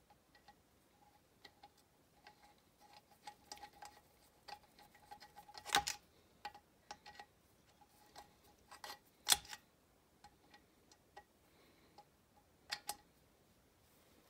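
Faint, irregular clicks and light metallic taps of a hand tool on a Quadrajet carburetor's main body as the needle-and-seat assembly is screwed into its threads and tightened. Sharper clacks come about six, nine and thirteen seconds in.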